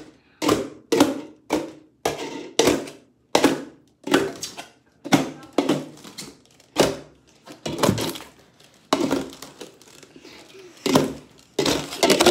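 Red plastic cups being set down one after another on a cup stack and table, a run of sharp knocks about two a second, closer together near the end.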